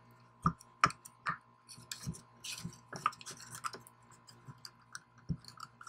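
Scattered light clicks, taps and scrapes of a nylon zip tie being threaded through the holes of a wooden robot chassis to hold a servo in, with the parts knocking in the hands.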